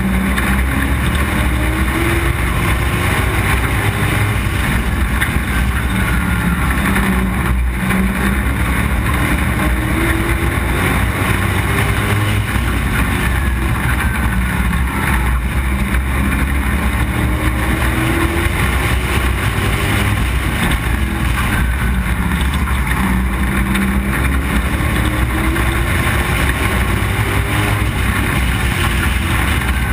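Street stock race car's engine at racing speed, heard on board: its pitch climbs again and again, every five or six seconds, as the car accelerates out of the turns, over a steady rushing noise.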